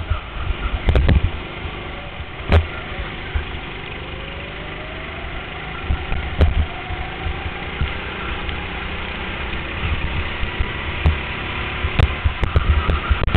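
Go-kart engine running as the kart is driven, rising in pitch from about four seconds in as it accelerates. Several sharp knocks and thumps come through, around one, two and a half, six and twelve seconds in.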